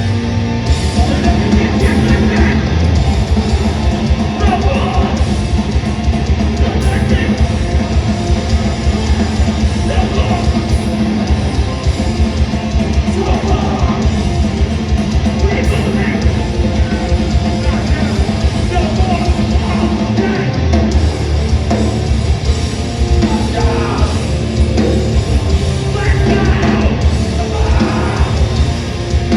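Hardcore punk band playing live, loud and fast: distorted guitars, drums and vocals.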